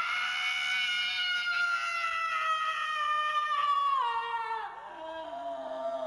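Scrat, the animated squirrel character, screaming: one long high-pitched scream that slowly falls in pitch, then drops sharply about four seconds in to a lower, wailing cry.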